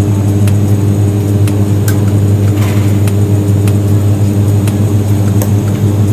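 TIG (GTAW) welding arc burning on a steel pipe joint during a repair pass on a root concavity defect: a steady electric hum under a light hiss, with a few faint scattered ticks.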